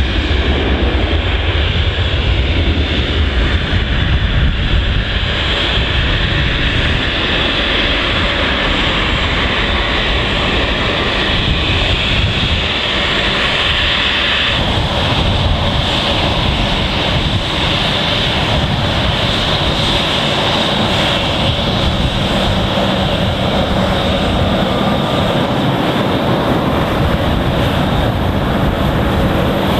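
Jet airliner engines running steadily at low taxi power. Early on a Boeing 737-300 rolls on the far runway. From about halfway the two GE CF34-10E turbofans of an Embraer E190 run close by as it taxis past.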